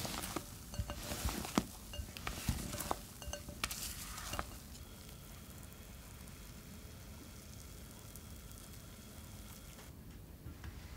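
A wire whisk stirring thick chocolate batter in a glass bowl, with irregular clicks and knocks against the glass for about four seconds. Then a soft steady sizzle as spooned batter cooks in an oiled frying pan, which stops abruptly about ten seconds in.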